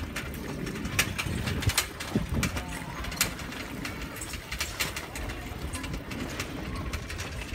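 Bicycle clicking and rattling as it rolls over brick paving: sharp, irregular ticks over a steady low rumble.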